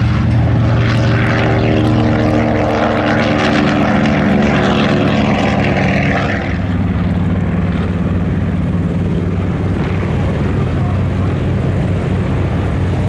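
Radial piston engine of a WWII US Navy bomber running loud with a propeller drone. About six seconds in, the higher part of the sound drops away and it settles to a lower, steady drone.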